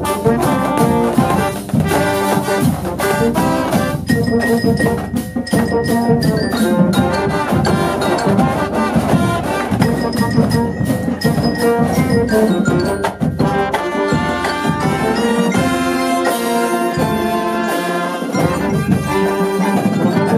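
Brass band playing an upbeat tune, with trumpets and trombones over a steady drum beat.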